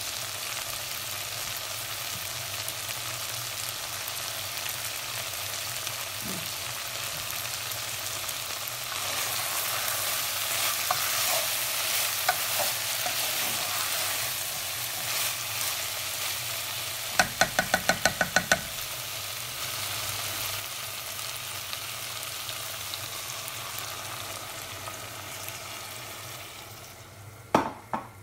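Dried-fish (shutki) and potato curry sizzling and bubbling in a steel pot, a steady hiss that grows louder for a few seconds before the middle. Just past halfway comes a quick run of about eight clicks, and near the end two sharp knocks.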